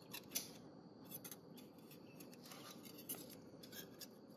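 Faint metal clicks and scrapes of a thin steel ruler pushing a piston ring down into a cylinder bore to square it for a ring-gap check, with a sharper click about half a second in and another about three seconds in.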